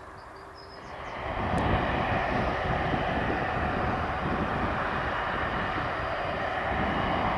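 Airbus Voyager KC3 tanker's twin turbofan jet engines running on the runway: a loud, steady rushing jet noise over a low rumble that comes in about a second in and holds steady.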